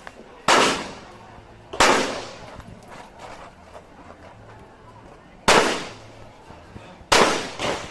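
Four revolver shots fired in a practical-shooting course of fire: two about a second and a half apart, a pause of nearly four seconds, then two more, each with a short echo.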